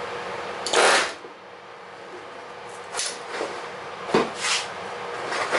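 A 2X pneumatic rivet gun fires one loud burst of about half a second, about a second in, driving a rivet into the aluminium skin of an RV-10 vertical stabilizer; a few shorter, quieter hits follow over the next few seconds.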